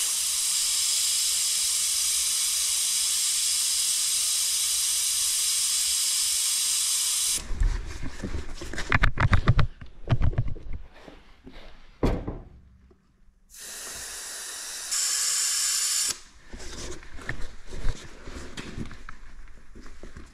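Air hissing steadily out of the valve stem of a Honda Big Red three-wheeler's balloon tire as it is let down toward the 3–4 psi it runs at; the hiss cuts off abruptly about seven seconds in. Knocks and rubbing of hands working the tire follow, with a second short hiss of escaping air about fifteen seconds in.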